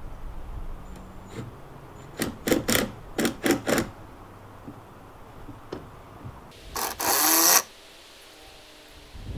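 Ryobi cordless drill driving screws into a gate hinge: a quick series of about six short trigger bursts a couple of seconds in, then one longer, louder run of under a second a little past the middle.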